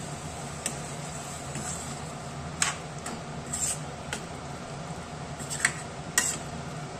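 Metal spatula stirring mushroom curry in a kadhai, wet scraping with about six sharp clinks of the spatula against the pan. A steady low hum runs underneath.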